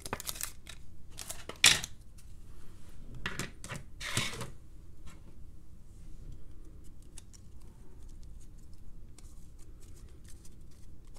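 A trading card being slid into a plastic penny sleeve and a rigid top loader: a few short swishing scrapes of card on plastic in the first half, then faint plastic clicks and rustles as cards are handled.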